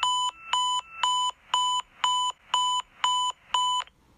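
Electronic alarm beeping: eight short high-pitched beeps, about two a second, the first few alternating with a lower tone in between.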